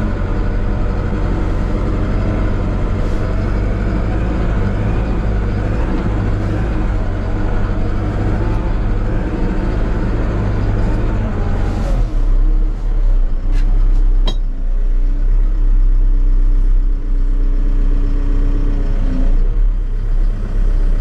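CAT loader's diesel engine running, heard from inside its cab as the machine drives. About twelve seconds in the engine note drops deeper and louder, and a steady whine holds for several seconds, with a single click partway through.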